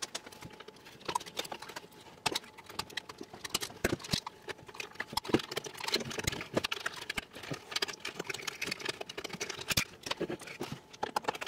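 Irregular clicks, taps and knocks from the parts of a Dyson Airblade hand dryer being handled and worked loose during disassembly.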